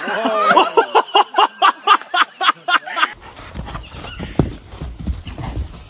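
A person's voice in a rapid run of short, pitched bursts, about five a second, that stops abruptly a little after three seconds. Then a horse moving on dirt, with soft hoof thuds over a low rumble.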